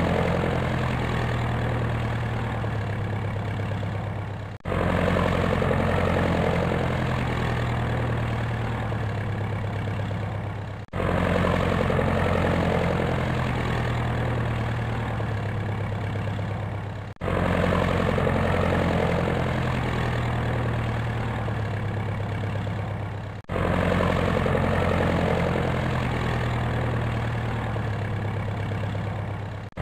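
Helicopter engine and rotor running steadily, a low drone with a busy mid-range whir. It is a loop of about six seconds, so the sound drops out for a moment and restarts four times.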